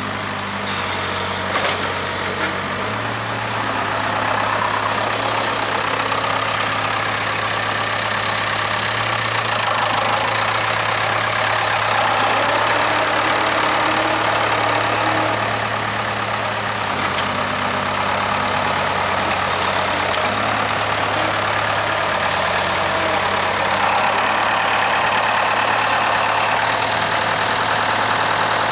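Case 580K backhoe's diesel engine running under working load while digging, its engine note stepping up and down several times as the machine works. A couple of knocks sound about one and a half seconds in.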